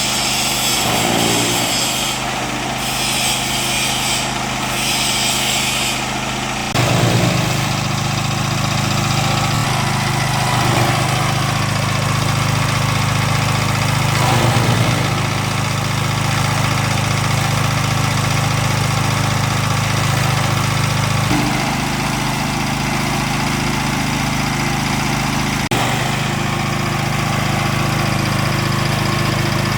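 Small petrol engine of a grass chopper machine running steadily after a choked warm-up start; its note gets louder about seven seconds in and shifts again about twenty seconds later.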